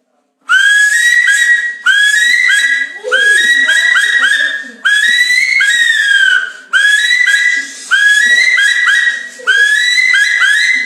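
High whistle-like chirping: bursts of about a second, each made of a few short clear chirps that rise quickly and then hold steady, repeated again and again with short gaps.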